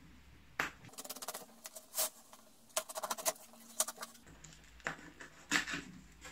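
Pocket knife slitting and scraping along the packing tape of a cardboard shipping box, then the cardboard flaps being pulled open: runs of quick scratchy rasps and a few single knocks and rustles.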